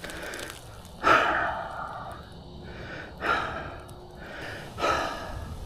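A man breathing heavily, out of breath from exertion: three loud breaths about two seconds apart, the first, about a second in, the loudest.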